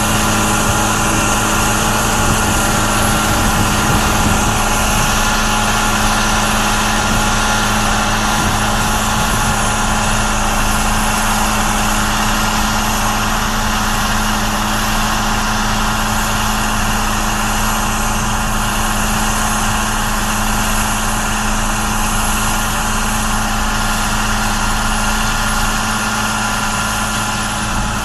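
John Deere 8410 tractor's six-cylinder diesel engine running steadily at a constant speed.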